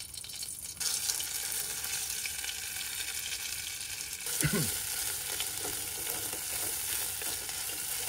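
Thai curry paste sizzling as it fries in hot oil in a pot, the sizzle jumping up about a second in and then holding steady while a silicone spatula stirs it around the pan.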